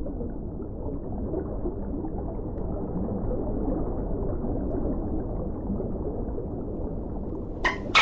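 Steady low underwater water noise with no clear tone. Near the end a loud, rapid train of dolphin clicks begins.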